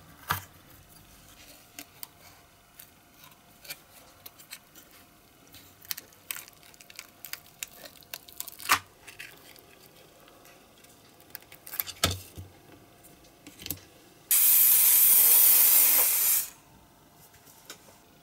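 Hands prying apart and handling a plastic mould box and silicone mould halves: scattered clicks, taps and small knocks. About fourteen seconds in, an aerosol can sprays in one steady hiss for about two seconds, the loudest sound.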